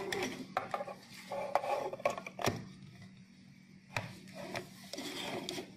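Hard plastic handling sounds: a handheld two-way radio and its desktop charging cradle being moved and fitted together, with several light clicks and knocks amid rubbing and scraping.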